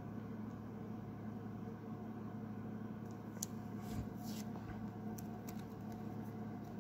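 Faint rustles and light clicks of trading cards being handled, over a steady low hum.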